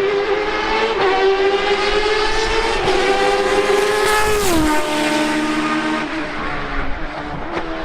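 Race car engine at high revs, its pitch climbing slowly, then dropping sharply about four and a half seconds in and easing lower.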